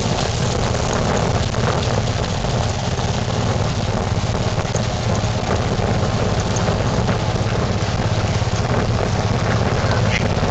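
Steady rumble and rushing noise from the rig moving along a dirt trail with a running sled-dog team, with wind buffeting the microphone.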